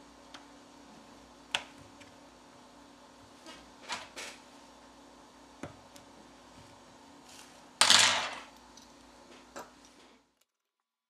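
Small clicks and taps of plastic smartphone parts being handled and pressed into a phone's midframe, one at a time, over a steady low hum. A louder scraping rustle comes about eight seconds in, and the sound cuts out just after ten seconds.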